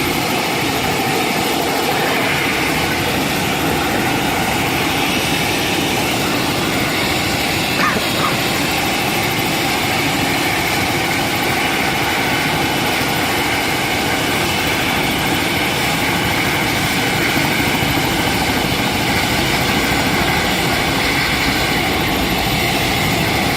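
A helicopter's turbine engine and rotor run at a loud, steady level while the aircraft sits on the helipad before lifting off.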